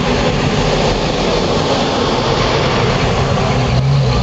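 Engines of WWII-era military vehicles driving slowly past: a six-wheeled armored car moving off and a canvas-covered army truck coming up. Near the end the truck's engine draws level and its steady low running note becomes the loudest sound.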